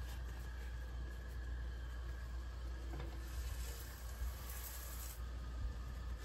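Faint, steady sizzling of a quesadilla frying in a pan on a camp stove, over a constant low hum, with a few light rustles and ticks as flour tortillas are handled and folded.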